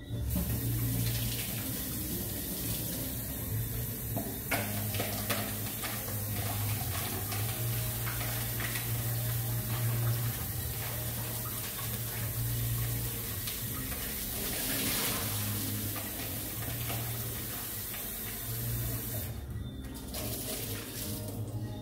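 Kitchen tap running steadily into a stainless steel sink while a plastic bowl is rinsed under it and water is poured out of the bowl into the sink.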